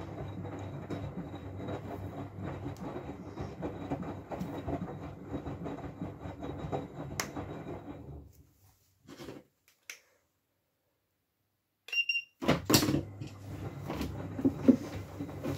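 Miele W433S washing machine drum turning through wet laundry during its rinse phase (Pendelspülen), with a steady motor hum and churning. The drum stops about eight seconds in, then starts turning again about four seconds later with a brief high tone and a few loud knocks.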